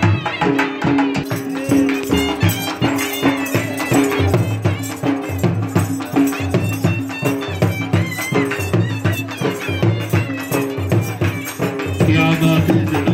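Traditional folk music: steady drumming with a long held melody line over it.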